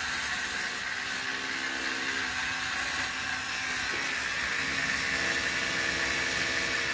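Ryobi One+ 18-volt cordless pressure washer running, its electric motor and pump giving a steady whirring hum over the hiss of the water jet. The pump is priming from a bucket and the spray comes up toward full pressure, and the hum shifts slightly partway through.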